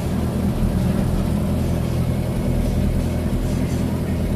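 Chevrolet Opala's engine running steadily at low revs, heard from inside the cabin as the car rolls slowly.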